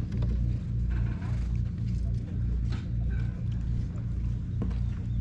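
Tabby cat purring, a low steady rumble that swells and eases with each breath, as it is stroked on the head and chin.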